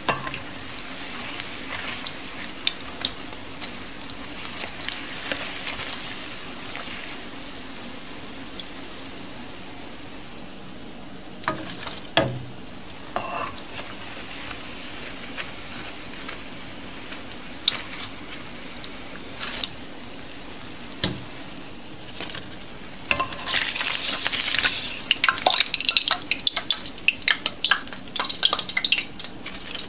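Besan fritters (phulkiyan) deep-frying in hot oil in a karahi: a steady sizzle with scattered clinks of a slotted spoon turning them. From about 23 seconds in, louder rapid scraping and clattering of the spoon against the pan as the golden fritters are scooped out.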